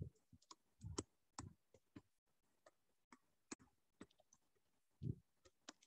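Near silence with faint, irregular clicks and taps of a stylus on a pen tablet while words are handwritten.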